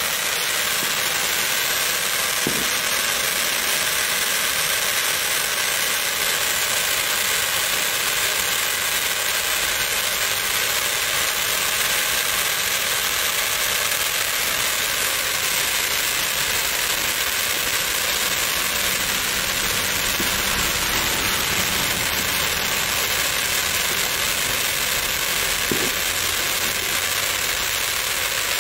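Two dragon wand handheld firework fountains burning with a steady hiss.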